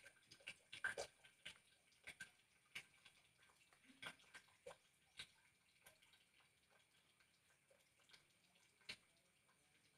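Near silence: faint, irregular little clicks and ticks, more of them in the first half, over a faint steady high hum.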